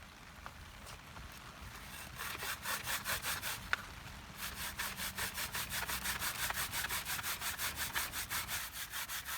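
Fast, rhythmic scraping strokes, about six a second, from food being worked by hand during cooking prep: a short run about two seconds in, then a longer steady run from about four and a half seconds.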